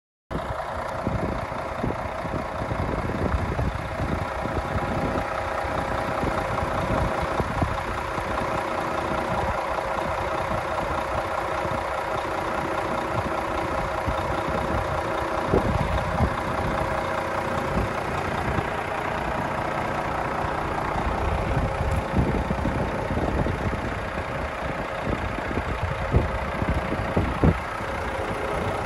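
Renault T460 tractor unit's 11-litre six-cylinder diesel idling steadily, over an uneven low rumble, with a few brief knocks near the middle and end.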